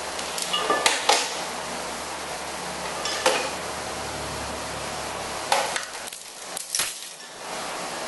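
Iron weight plates and steel chain clanking against an anvil as the load is loaded and adjusted: a few sharp metal clanks in the first second or so, one about three seconds in, and a cluster after five seconds, over a steady hiss.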